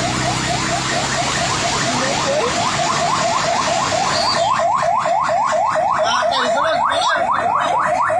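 Electronic siren in a rapid yelp: about five quick rising sweeps a second, growing louder about halfway through. For the first half it sounds over a steady rush of floodwater.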